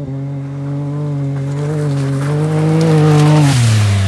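Can-Am Maverick X3 side-by-side with its turbocharged three-cylinder engine, held at steady high revs as it approaches and passes close. A rush of tyre and dirt noise peaks as it slides by, and the revs drop sharply near the end as the driver lets off the throttle.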